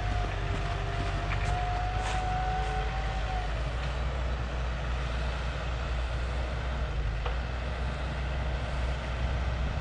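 Heavy vehicle engine running steadily as a low drone, with a faint steady whine over it that fades out about three and a half seconds in.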